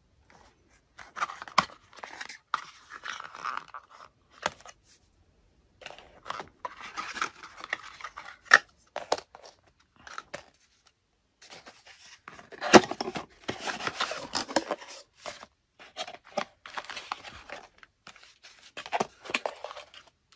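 Cardboard boxes and packaging being opened and unpacked by hand: bursts of rustling and scraping with sharp taps and clicks, separated by short pauses.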